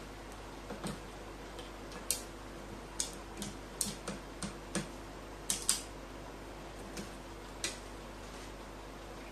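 A crow pecking at a snack held in its foot: about a dozen irregular, sharp beak clicks, thickest in the middle, over a faint steady hum.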